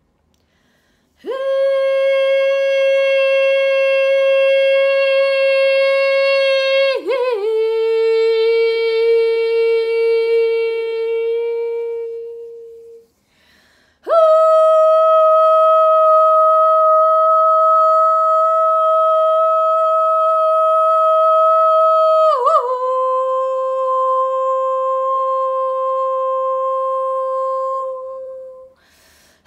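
A woman's voice toning without words: two long sustained sung notes, each stepping down to a lower pitch partway through, with a short breath pause between them about 13 seconds in.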